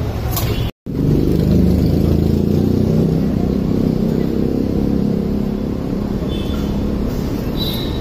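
Steady low rumble of road traffic, with vehicle engines running past; it drops out for an instant just under a second in. A couple of faint light clinks near the end.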